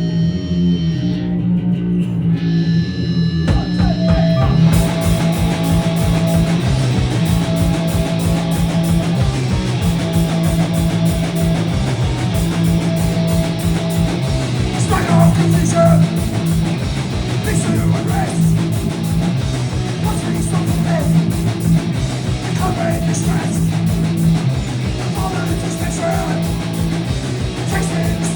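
Punk band playing an instrumental intro on distorted electric guitar; about three seconds in, drums and bass guitar come in with a fast, steady beat.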